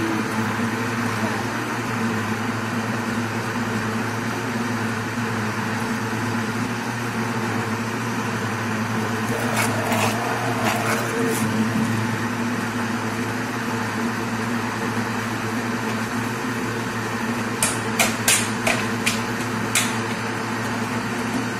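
Countertop blender motor running steadily, blending a thick liquid mango ice-cream mixture. A few sharp clicks come about halfway through, and a quick cluster of them near the end.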